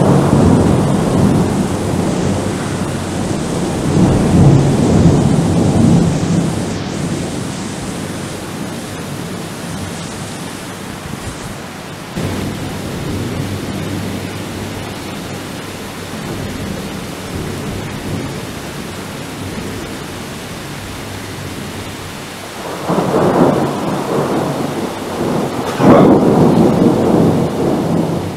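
Thunder rumbling over steady rain. Near the end come two sudden, loud thunderclaps a few seconds apart, the second a sharp crack, each rolling on into a long rumble.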